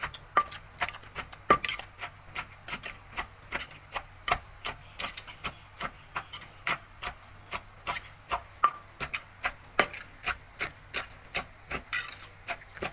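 Pestle pounding green papaya salad in a clay mortar: a steady run of knocks, about three to four a second.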